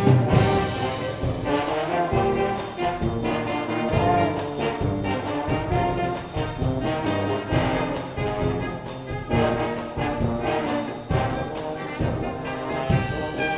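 A brass band playing music: horns such as trombone and trumpet carrying the tune over a steady beat.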